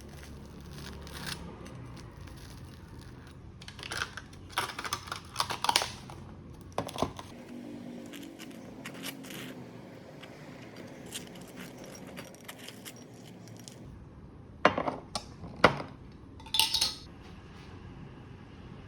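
Light clinks and clatters of small hard objects being handled, coming in a few short clusters.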